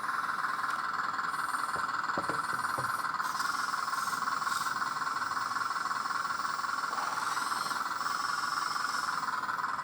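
Hydraulic pump of a 1/14-scale RC excavator running with a steady whine. A few light clicks come about two seconds in, and the higher hiss shifts as the valves are worked.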